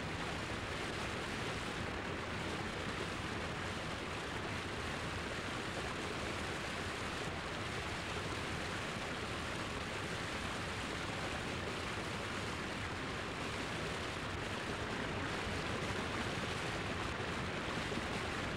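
Large waterfall rushing over rocks: a steady, dense roar of falling whitewater that holds unchanged throughout.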